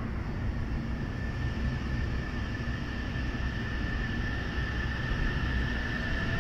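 JR West 683-series electric limited express train pulling away from the platform: a steady low rumble under a high, steady electric whine from the traction equipment. Near the end a lower tone begins to rise in pitch as the train gathers speed.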